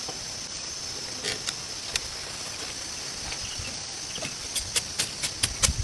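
A few scattered sharp knocks, then from about three-quarters of the way in a quick regular run of them, roughly four a second, over a steady high-pitched hiss.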